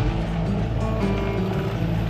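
Background music over the steady running of a concrete mixer.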